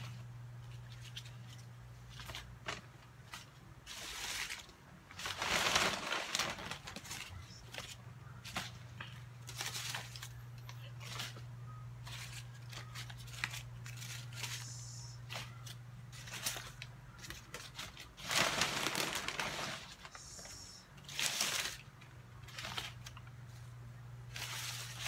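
Paper banknotes rustling and crinkling as they are handled and sorted, in short bursts with a few longer stretches of crumpling. A steady low hum runs underneath.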